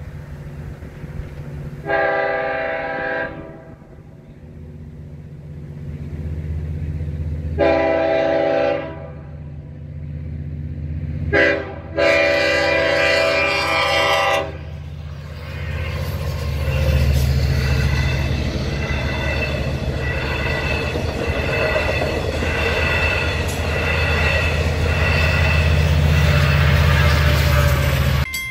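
Long Island Rail Road diesel locomotive blowing its multi-tone horn in the grade-crossing pattern: two long blasts, a short one, then a long one, the crossing warning. The engine's low rumble builds as the locomotive and its bilevel coaches pass close by over the last dozen seconds.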